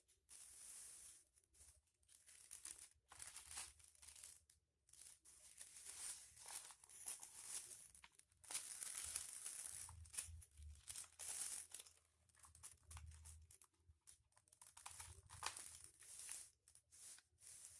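Foil-covered paper crinkling and rustling in irregular bursts as it is folded and creased by hand.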